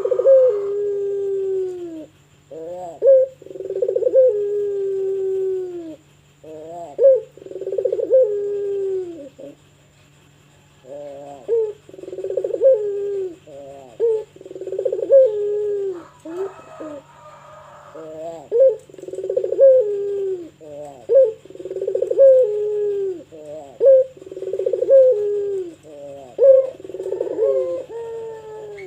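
Pelung variety of puter (domestic turtle dove) cooing over and over, each call a short rising note followed by a long, falling coo, about one every two seconds, with a pause about ten seconds in. A steady low hum runs underneath.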